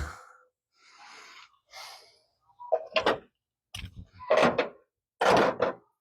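A series of short knocks and clunks, hard objects being handled, coming about once a second from about three seconds in after a quieter first half.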